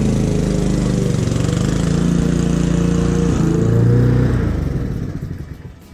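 Honda walk-behind rotary lawn mower's four-stroke petrol engine running steadily as it cuts the grass. It is loudest as the mower passes close about four seconds in, then fades quickly as it moves away.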